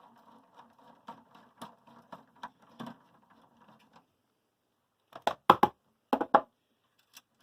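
An 11mm socket turning the nuts on the LNB connectors of a Sky HD box, with quick light clicking for about four seconds. After a short pause come two groups of loud sharp clacks, about five and six seconds in.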